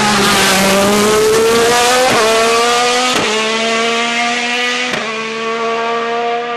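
Hillclimb race car's engine at full throttle, its pitch climbing through the gears with three quick upshifts, about two, three and five seconds in. The sound slowly fades near the end as the car draws away.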